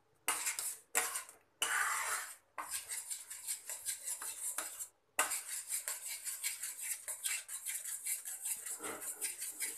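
Steel spoon scraping and clinking around a kadai in fast, repeated strokes while semolina halwa is stirred continuously in milk as it thickens. The sound drops out to silence briefly a few times in the first five seconds.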